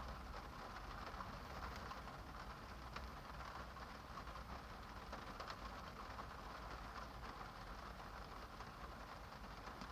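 Steady rain falling, a soft even hiss with scattered drops ticking sharply through it, over a faint low rumble.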